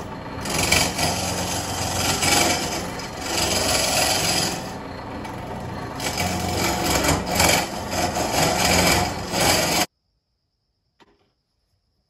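Turning gouge hollowing a spinning blank of epoxy and cherry burl on a wood lathe: a loud, continuous scraping cut that swells and eases as the tool is worked. It stops abruptly about ten seconds in, leaving near silence with a couple of faint clicks.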